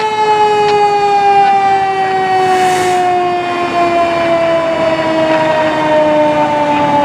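A fire engine's mechanical siren coasting down: one steady, rich tone slowly falling in pitch. There is a short hiss about two and a half seconds in.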